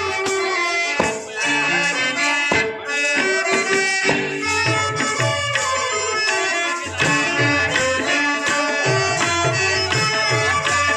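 Traditional Indian theatre music: a held, reedy melody over hand-drum strokes, accompanying a stage dance.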